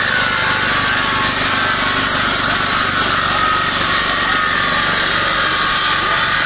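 Large angle grinder cutting steel with an abrasive disc: a steady harsh grinding with a whine that slowly drops in pitch. A petrol generator runs underneath.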